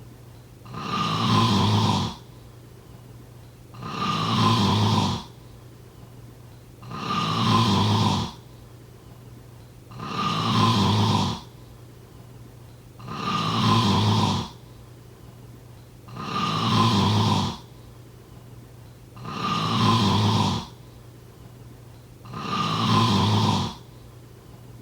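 A sleeping person snoring in a steady rhythm: eight snores, each about a second and a half long, spaced about three seconds apart, with quiet breathing between.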